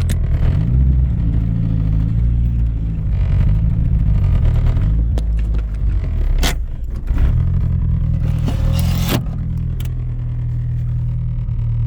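Turbocharged 4G63 four-cylinder engine of a 1990 AWD Eclipse/Talon running on the move, its note rising and falling, with a couple of sharp knocks and a steadier note over the last few seconds. The car has a misfire.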